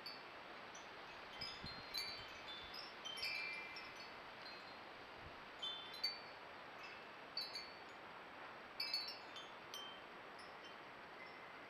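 European robin singing: scattered phrases of short, thin, high whistled notes at changing pitches, with pauses between them, over a faint steady hiss.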